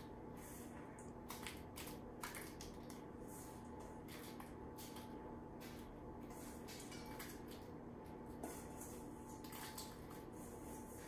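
Faint rustling and scattered soft ticks of crumble topping being sprinkled by hand onto muffin batter in paper cups, with a few slightly louder ticks, over a faint steady hum.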